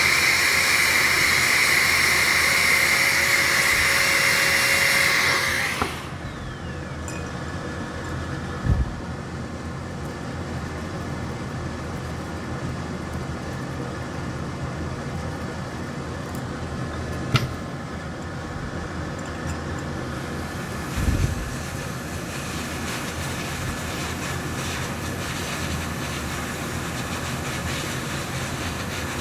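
An electric blower runs loudly with a steady high whine, then cuts off suddenly about six seconds in. A quieter steady fan noise carries on after it, broken by a few light clicks.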